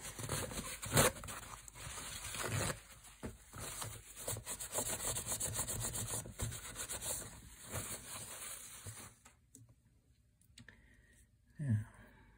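A paper towel rubbing and scrubbing over a rifle's steel receiver, an uneven wiping sound that stops about three-quarters of the way through. A sharp knock comes about a second in.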